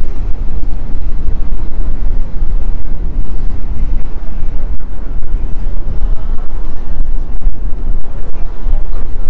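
Wind buffeting the microphone in a loud, gusting rumble, heaviest in the low end.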